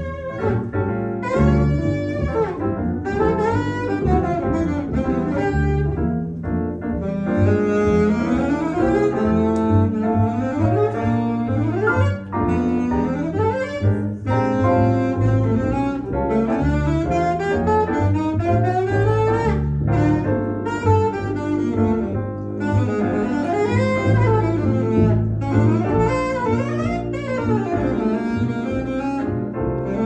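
Live jazz: a saxophone playing a flowing melodic line over a walking upright double bass.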